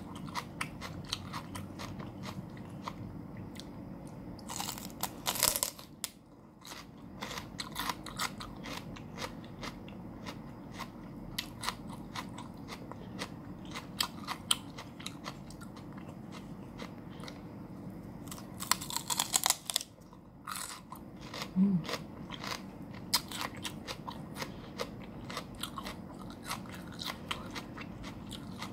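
Raw celery stalk being bitten and chewed close to the microphone: a steady run of crisp, wet crunches and crackles. Two louder bites stand out, about five seconds in and again around nineteen seconds in.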